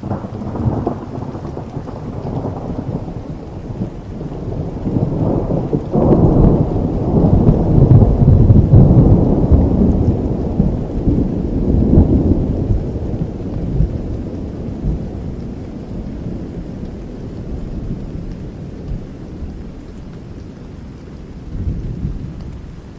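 Thunder rumbling over steady rain. The rumble breaks in suddenly, swells to its loudest in the middle and slowly fades back toward the hiss of the rain.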